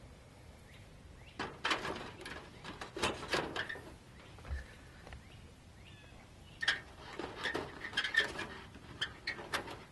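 Small clips being snapped onto the rack rods inside a folding reflector oven made of thin metal flashing: light metallic clicks and rattles in two bursts, one about a second and a half in and another from about six and a half seconds in.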